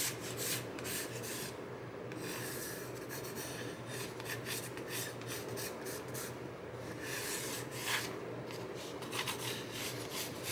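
Pencil drawing on corrugated cardboard: a run of scratchy strokes, some short and some drawn out.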